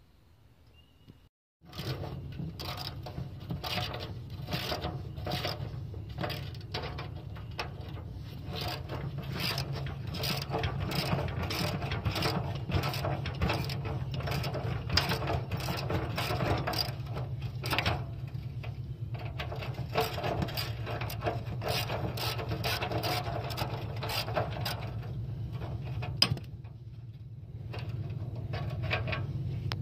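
Hand socket ratchet wrench clicking rapidly as it turns out the transaxle mount bolts on a lawnmower, starting about a second and a half in. The clicking runs on with a few brief pauses and goes quieter near the end.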